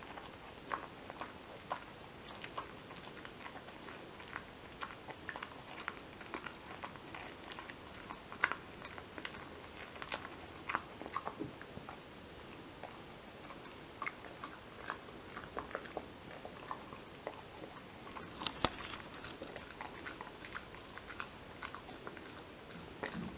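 A Kai Ken dog slowly chewing a Purina Dentalife dental chew: irregular crunches and clicks of its teeth on the chew, with one sharper crack about three-quarters of the way through.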